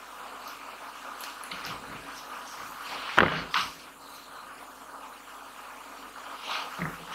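Hardcover book handled and turned over on a wooden tabletop: a sharp knock about three seconds in as it is laid down, a lighter tap just after, and soft rubbing of hands on the covers near the end, over a steady faint hiss.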